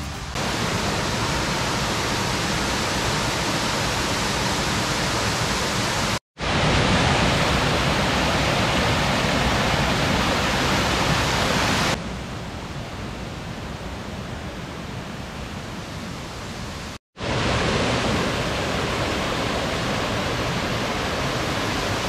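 Rushing mountain stream: a steady hiss of water over rocks, quieter and duller for a stretch in the middle and cut off twice for a moment.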